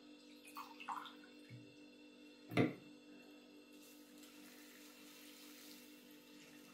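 Vinegar being poured from a glass into a jar of hot peppers as pickling brine: a faint, even pour through the second half, after a single knock about two and a half seconds in.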